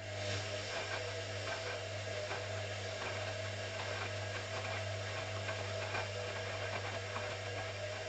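Hoover CA232 front-loading washing machine's motor starting up and turning the drum in a wash. A steady motor hum and whine, with the wet laundry and water sloshing and knocking irregularly in the drum.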